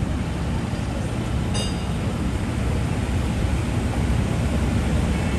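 City street ambience dominated by a steady low rumble of traffic, with a brief high-pitched ring about one and a half seconds in.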